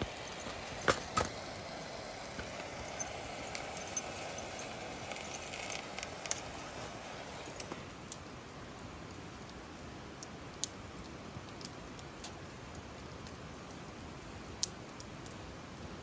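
Wood campfire crackling, with scattered sharp pops, the loudest about a second in and twice more later, over a steady rush of river water.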